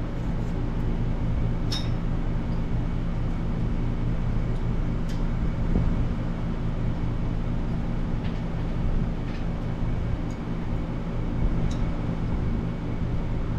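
A steady low machine hum with a few light metallic clicks of small tools and a brake-line flaring bar being handled.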